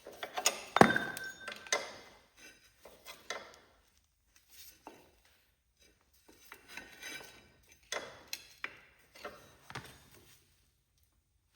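Metal tools and parts clanking during mechanical work: one sharp clink that rings briefly about a second in, then scattered lighter taps and knocks that die away near the end.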